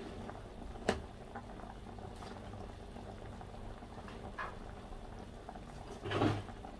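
A pot of pork ribs and broth at a rolling boil, bubbling steadily with small pops. A single sharp click comes about a second in, and there is a brief louder sound near the end.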